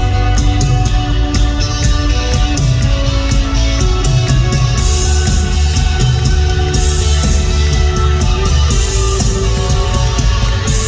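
Rock band playing live: electric guitars, bass and drum kit, loud and steady, with frequent drum hits.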